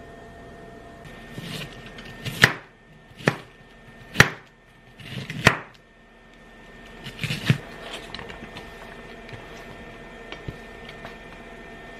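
Chef's knife slicing through an onion, about five cuts roughly a second apart, each ending in a sharp knock on the cutting board. About seven seconds in, a short rattle of onion pieces sliding off the board into a frying pan.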